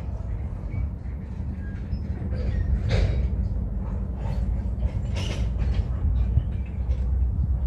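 Train rolling by: a steady low rumble with scattered clanks and a few brief high squeaks.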